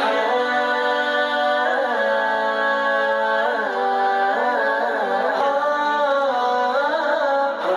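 Nasheed of layered singing voices holding long notes with ornamented, gliding turns over a steady held lower tone.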